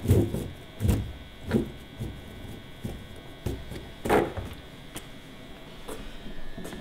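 Rope and hands handled on the fibreglass deck of a Laser dinghy: a few short rubs and knocks in the first second and a half and another about four seconds in, with a faint steady hum behind.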